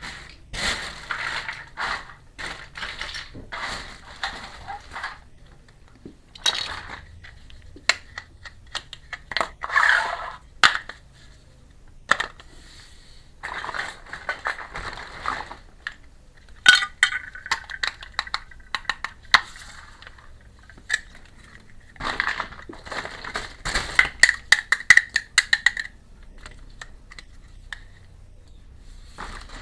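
Crinkling plastic packaging and small clicks and clinks of miniature toy kitchenware being handled, in bursts of a few seconds with short pauses between.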